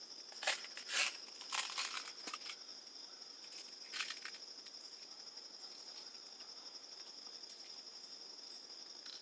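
Clicks and rustles of a Gamo Silent Cat break-barrel air rifle being handled and loaded with a pellet, several in the first two and a half seconds and one more about four seconds in. A steady high-pitched buzz runs underneath.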